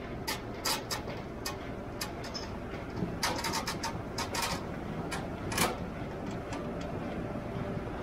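Potato store-loading conveyors running steadily, with irregular sharp knocks and clatter of potatoes tumbling along the belts onto the pile.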